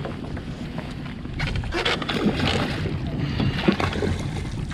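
Water splashing as a small hooked northern pike thrashes at the surface beside the boat while it is reeled in, getting louder and busier about a second and a half in.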